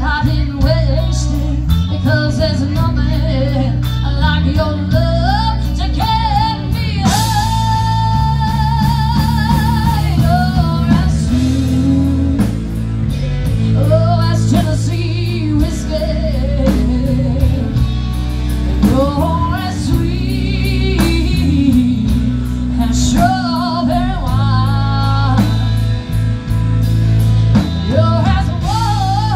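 Live blues-rock band playing, with electric guitar, bass, drum kit and a wavering lead melody line. The lead holds one long note for a few seconds about a third of the way in.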